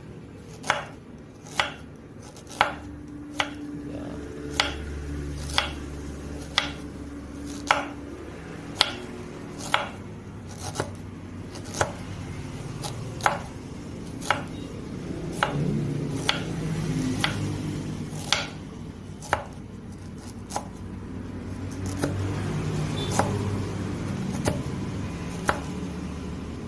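Knife chopping fresh red ginger, kencur and turmeric roots into small pieces: single sharp chops, about one a second.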